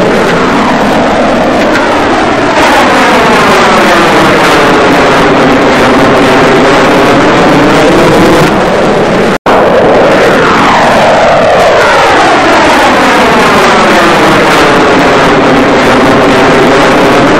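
Loud rushing roar of a missile flying past, its whoosh sweeping down and back up in pitch as it passes. A sudden cut about nine seconds in, then a second pass.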